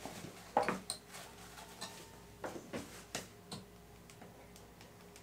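Light knocks, clicks and scrapes of a soft soap loaf being handled and pushed along a plastic soap cutter's tray. They come as a scattered string of short taps, the loudest about half a second in, thinning out after about three and a half seconds.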